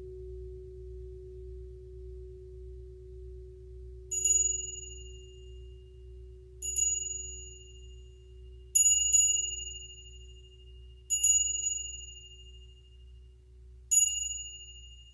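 A steady low tuning-fork tone fades slowly away. From about four seconds in, a small high-pitched chime is struck five times, roughly every two to three seconds, with two of the strikes quick doubles, and each strike rings on briefly.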